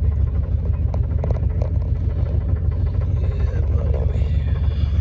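Truck engine running, heard from inside the cab: a steady low rumble, with a few light clicks about a second in.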